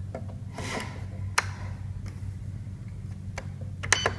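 Sharp plastic clicks of an Avionic 10-channel RC transmitter's buttons and scroll roller being worked: a few single clicks, then a quick cluster just before the end with a short electronic key beep from the transmitter. A steady low hum runs underneath.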